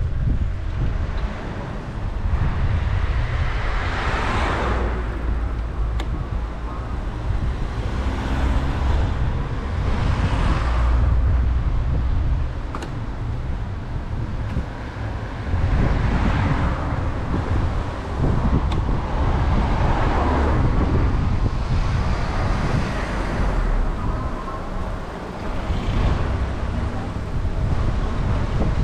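City road traffic heard from a bicycle, with cars passing every few seconds, each swelling and fading, over a constant low rumble of wind on the microphone.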